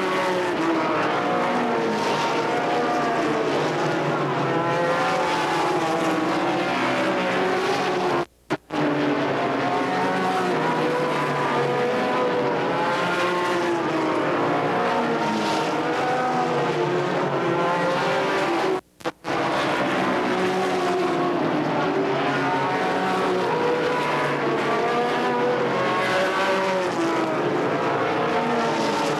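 A field of V8 stock car engines running at race speed around a short oval, the pitch rising and falling again and again as cars go by and work through the turns. The sound cuts out completely for a moment twice, about eight and nineteen seconds in.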